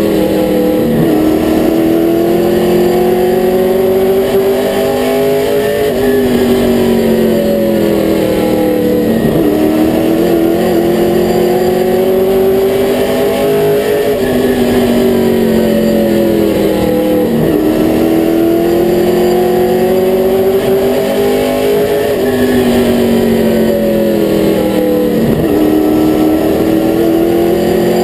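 Late model stock car's V8 engine heard from inside the cockpit at racing speed, its note climbing along each straight and dropping sharply where the driver lifts for a turn, the cycle repeating every eight seconds or so as it laps the short oval.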